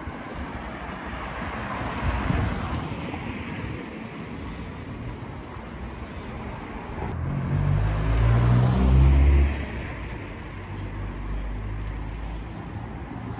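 Road traffic on a town street: one car passes about two seconds in, then a louder vehicle with a low engine note goes by around eight to nine seconds in and falls away quickly.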